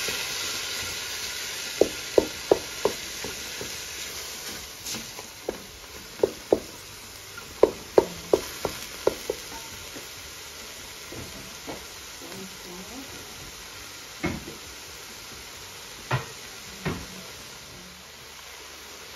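Minced chicken and onion sizzling in a stainless steel pot while a wooden spoon stirs them, knocking against the pot in quick runs of sharp taps. The sizzle is strongest in the first few seconds and then fades, leaving a few single taps near the end.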